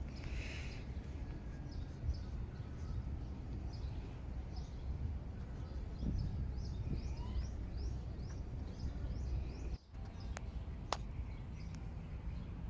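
Small birds chirping in short, repeated calls over a steady low rumble of outdoor noise, with two sharp clicks near the end.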